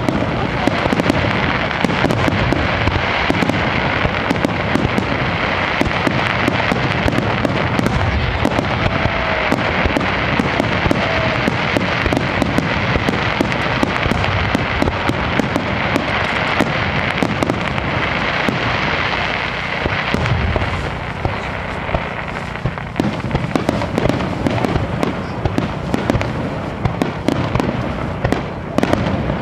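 Fireworks display: a continuous run of shells bursting and crackling in quick succession, dense and unbroken, easing off slightly about two-thirds of the way through.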